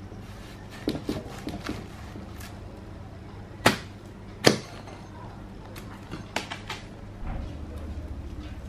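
Heavy cleaver chopping through raw jackfruit onto a wooden block: a few light knocks about a second in, two sharp loud chops in the middle, and a few lighter knocks later on, over a steady low hum.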